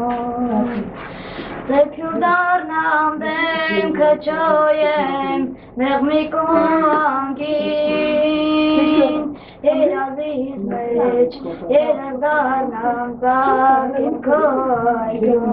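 A child singing solo in a high, unbroken voice, with one long held note about halfway through.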